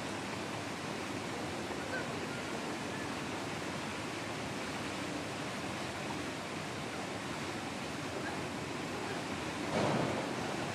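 Steady ambient background hiss, with a brief louder sound about ten seconds in.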